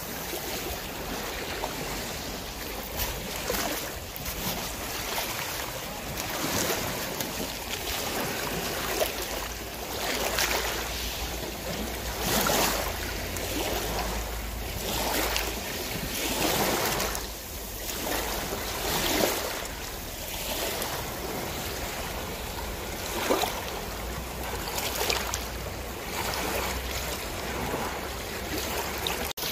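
Sea water splashing and sloshing alongside a slowly cruising boat, in irregular washes every second or two, over a steady low rumble.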